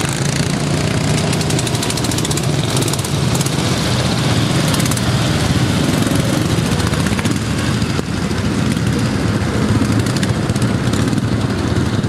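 Several racing lawn mowers with stock single-cylinder flathead engines running together at racing speed, their engine noise steady and overlapping.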